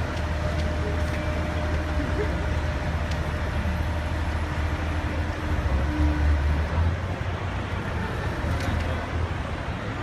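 Street traffic and a heavy vehicle engine running steadily, a low rumble that swells briefly about six seconds in.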